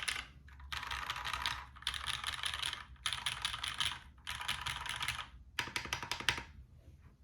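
Typing on a dnworks DNDD mechanical keyboard with Krytox-lubed Cherry MX Black Ultraglide linear switches, an aluminium plate and GMK keycaps. Rapid keystrokes come in five runs of about a second each with short pauses between, stopping near the end.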